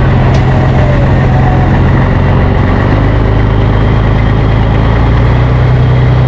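Truck's turbocharged Mercedes-Benz 1113 six-cylinder diesel engine idling steadily, loud and deep.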